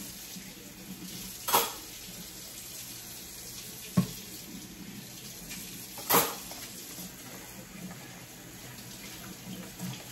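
Kitchen faucet running steadily into a plastic tub in the sink, with three sharp knocks of dishware about a second and a half, four and six seconds in.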